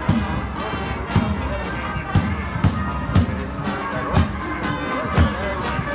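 Marching brass band playing a march: trumpets and trombones over bass drum beats about once a second.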